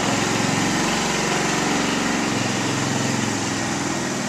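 Small petrol go-kart engine running steadily at modest revs, its pitch sagging a little midway and recovering.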